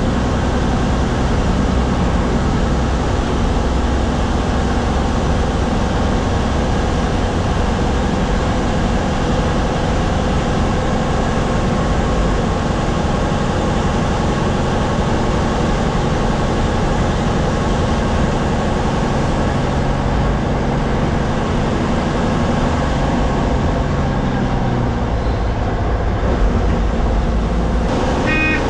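An MSRTC non-AC sleeper bus under way, heard from inside the driver's cabin: a steady engine hum under continuous road and cabin noise. A brief higher-pitched tone sounds just before the end.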